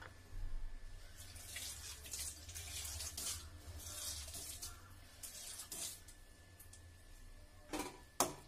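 Tamarind water simmering in an aluminium kadai of bitter gourd curry: soft, irregular hissing and bubbling over a low steady hum. Near the end, two clinks of the steel ladle as it is picked up.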